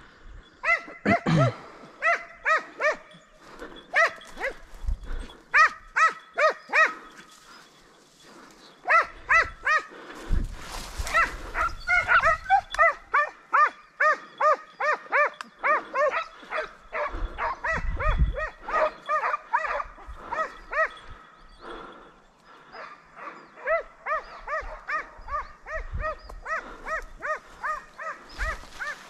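Kopay hound giving tongue on the trail of a hare: a long run of rapid, high-pitched yelping barks, several a second, with a couple of short breaks.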